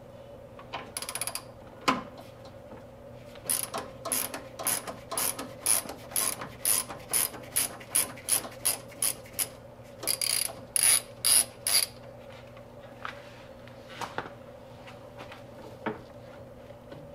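Ratchet wrench with a 14 mm long socket loosening the bolt that holds an air cleaner onto a Zenith carburetor. The pawl clicks in runs of about two or three clicks a second, thickest just past the middle, followed by a few separate light knocks near the end, over a faint steady low hum.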